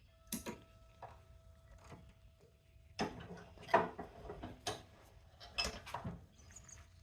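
Scattered clicks and clanks of hand tools and small plug parts being handled while brass prongs are worked out of electrical plugs with channel-lock pliers and a vise, about seven knocks in all, the loudest near the middle. A faint steady hum runs through the first three seconds.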